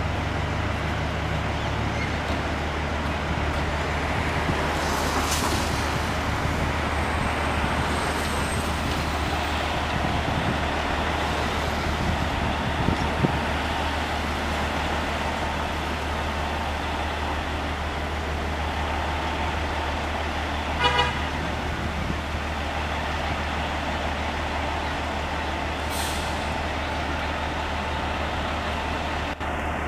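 Fire engine's diesel engine idling steadily in the station bay. A car drives past close by partway through, and a short horn toot sounds about two-thirds of the way in.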